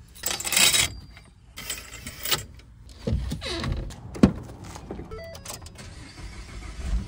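Bedding and clothing rustling, then a pickup truck's door latch clicking open about four seconds in, followed by keys going into the ignition and a few short, faint chimes from the cab.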